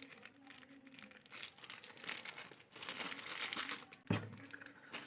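Plastic packaging crinkling and rustling as it is handled, with many small clicks and a short thud about four seconds in.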